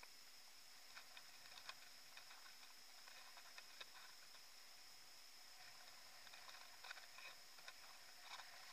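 Near silence: a recorder's steady hiss with a faint high whine, and scattered faint clicks and ticks from about a second in, more of them near the end.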